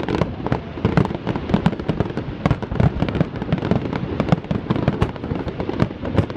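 Fireworks display: a dense, continuous barrage of aerial shell bursts, sharp bangs several times a second with crackle between them.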